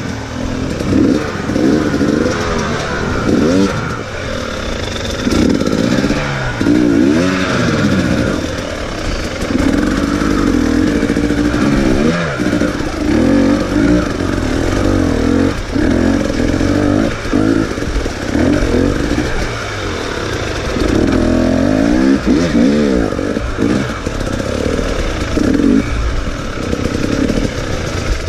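Enduro dirt bike engine revving up and falling back over and over under short bursts of throttle as it climbs a rocky streambed, with the odd knock from the bike on the rocks.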